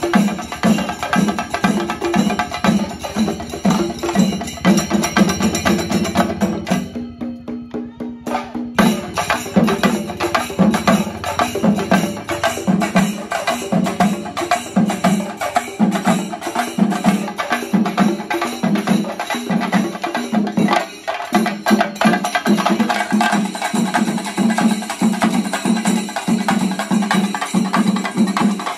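Shinkari melam: a large ensemble of chenda drums beaten with sticks, playing a fast, driving rhythm with an even repeating beat. It thins out briefly about seven seconds in.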